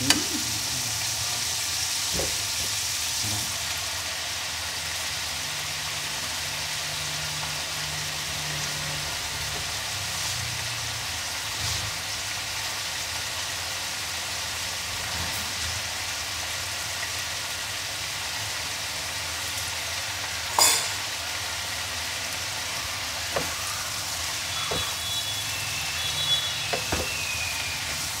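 Bamboo shoots and bitter greens stir-frying in a hot pan: a steady sizzle, with a few sharp clinks of the spatula against the pan in the second half, one much louder than the rest.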